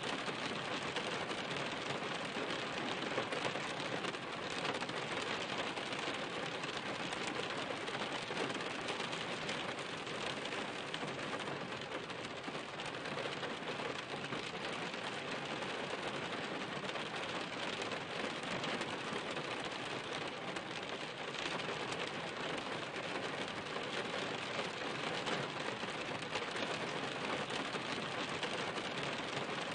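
Steady rain falling on a surface: an even, unbroken hiss of many drops that holds at one level throughout.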